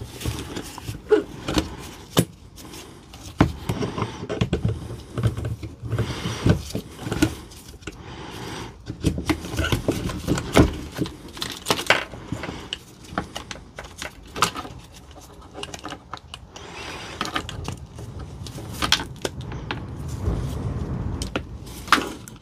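Parts of a Dewalt DCF899 cordless impact wrench being handled and fitted together: irregular clicks, knocks and rattles as the motor and metal gear housing are set into the plastic housing shell.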